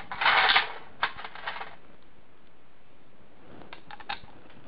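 Loose steel bolts jangling in a metal tray as a hand rummages through them, loudest about half a second in, followed by a few lighter clicks. Near the end a few light metallic clicks come as a bolt is set into a hole in the transmission's side cover.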